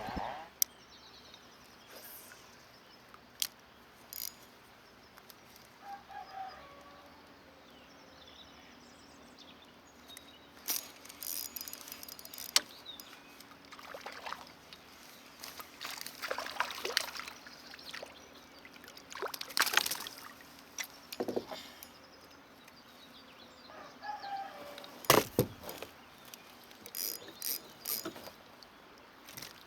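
Scattered knocks and clicks with several short water-like swishes, typical of tackle and hull handling while fishing from a kayak. A bird calls faintly twice, once early and once near the end.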